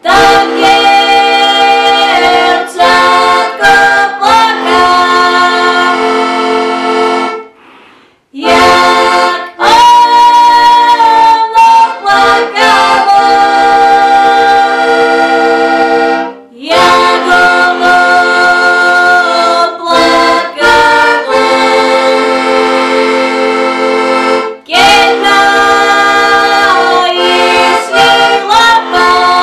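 Diatonic button accordion (heligónka) playing a folk tune in full chords, with a woman singing along. The playing stops for about a second roughly a quarter of the way in, and dips briefly twice more between phrases.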